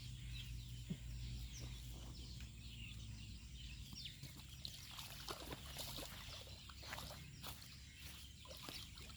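Faint bird calls: short, high chirps and clucks scattered through the whole stretch, over a low steady hum that fades out after about three seconds.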